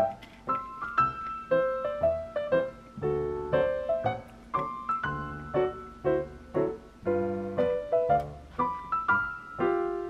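Background piano music: a light melody of struck notes, with lower bass notes joining about three seconds in.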